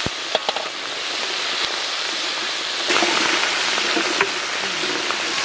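Giant freshwater prawns (golda chingri) frying in hot mustard oil in a large metal kadai: a steady sizzle that grows louder about three seconds in, with a few light clicks of a slotted spoon stirring them.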